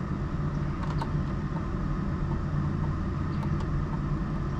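A steady low hum, with a few faint clicks as the gauge pod is handled.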